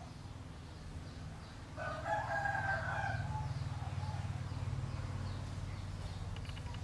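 A single drawn-out animal call, about two seconds in and lasting just over a second, over a steady low hum.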